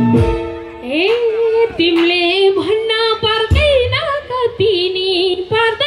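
A woman singing a Nepali dohori folk song live into a microphone, long held notes with a wavering pitch. The band's music breaks off at the start, and she sings on with little accompaniment.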